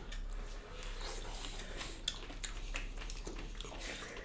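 Close-miked eating sounds during a mukbang: chewing, with many small irregular wet clicks and smacks.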